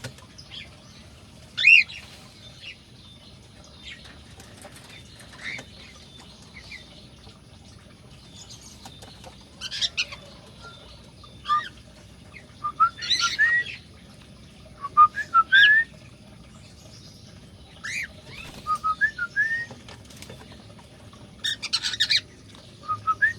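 Cockatiels calling: scattered short rising whistles and harsher squawks, several coming in quick runs.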